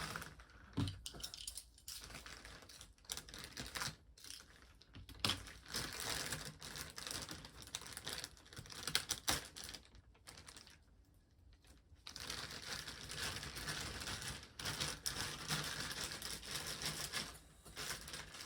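Plastic packaging crinkling and rustling in irregular bursts, with scattered clicks and taps, as a boxed figure is pulled out of its packing. There is a pause of about two seconds partway through, then steadier crinkling.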